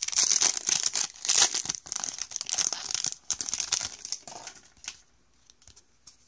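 A baseball card pack's wrapper being torn open and crinkled in the hands, a dense crackling with many sharp snaps. It thins to a few faint rustles about three seconds in.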